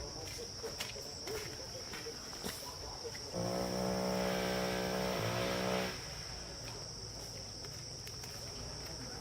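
Steady high-pitched drone of insects, with one long, loud low call from a cow mooing about three seconds in, lasting about two and a half seconds with a short dip in pitch near its end.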